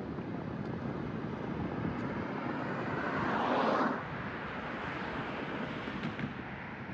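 Steady outdoor traffic noise with wind on the microphone. About three seconds in, a louder rushing sound swells for about a second, then cuts off abruptly.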